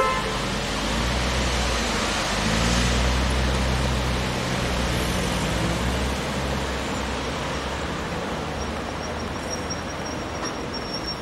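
Steady city road traffic noise, with a heavy vehicle's engine hum rising in pitch about two seconds in and fading out by about seven seconds. A thin high whine comes in near the end.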